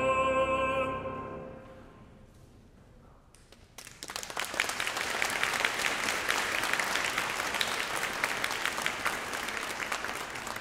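A baritone's final held note, with the ensemble accompanying him, fades away over the first second or so, followed by a brief hush. Just under four seconds in, the audience breaks into steady applause.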